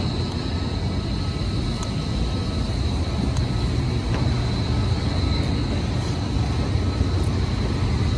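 Steady low machinery drone with a faint, constant high-pitched whine, from a running gas boiler and the equipment around it.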